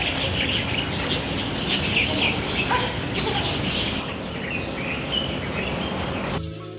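Many small birds chirping and calling over a steady background hiss. Music starts abruptly near the end.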